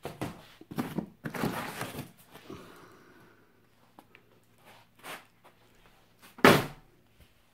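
Packing tape and wrapping being pulled and handled on a home-gym part, in several noisy rustling, tearing bursts over the first two seconds, with a few smaller rustles after. Near the end, about six and a half seconds in, comes one louder, short thump and rustle.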